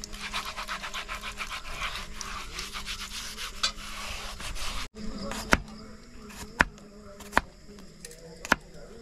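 A sponge scrubbing the inside of a cast-iron Dutch oven under a thin stream of water from a jug's tap, in quick rubbing strokes. About halfway through it cuts to a knife slicing garlic cloves on a wooden chopping board, the blade tapping the board four times.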